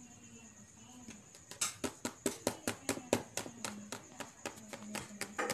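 A quick run of sharp clicks or taps, about five a second, starting about a second and a half in, over a faint steady hum.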